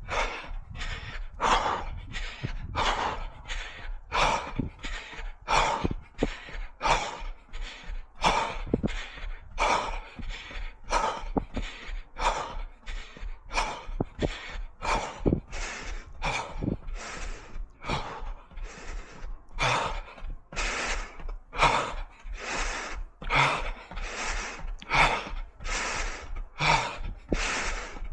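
A runner's hard, rhythmic breathing while running, about three breaths every two seconds.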